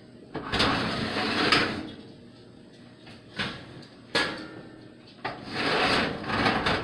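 Oven broiler being opened and a perforated metal pizza pan slid out: four sliding, scraping noises.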